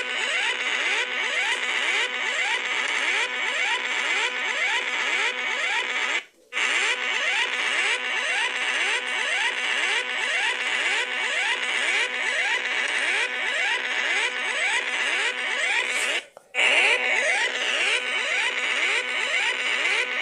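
Synthesized emergency-alert siren: rapidly repeating rising whoops over a harsh hiss, cutting out briefly twice.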